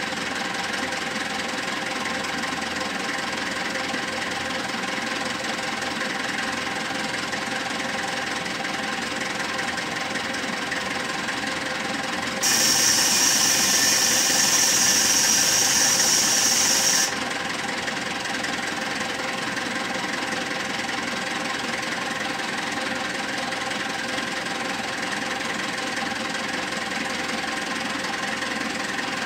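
Wheel loader's diesel engine running steadily. About twelve seconds in, a loud hiss cuts in abruptly, lasts about four and a half seconds and stops just as suddenly.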